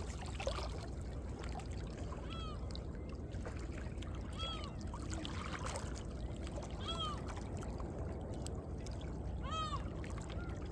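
Small sea waves lapping and sloshing among coastal rocks, a steady wash of water. Over it a bird gives four short arched cries, a few seconds apart.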